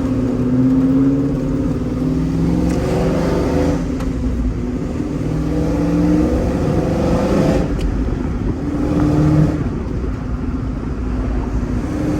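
Cammed LS V8 of a six-speed manual GMC Sierra pickup accelerating through the gears. The engine note climbs in pitch and drops sharply at each upshift, three times in a row.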